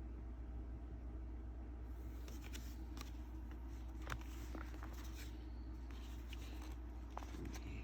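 Light handling of baseball cards and plastic binder sleeves: a few faint clicks and rustles over a steady low hum.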